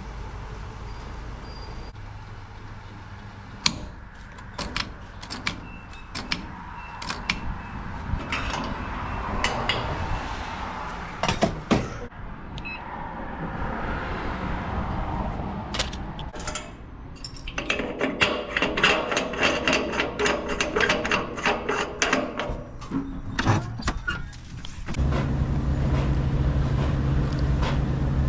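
Vehicle engine running, with rattling and scattered knocks. About 25 seconds in, a louder, steady engine hum takes over.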